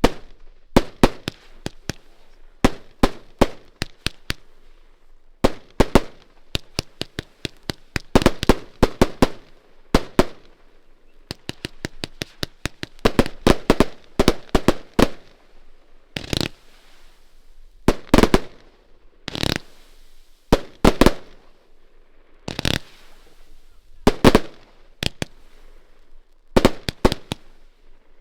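113-shot 25/30 mm firework battery (Schmidt Feuerwerke Doomonic) firing: fast runs of sharp bangs with short gaps between them, and fewer, heavier single bangs in the later part.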